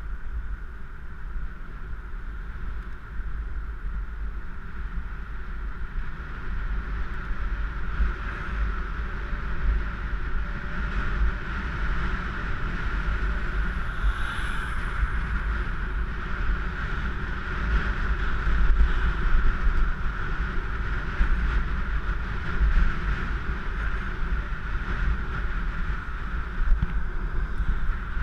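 Wind buffeting a GoPro's microphone while cycling through city traffic: a steady low rumble with a constant hum running through it. A brief high falling squeal comes about halfway through.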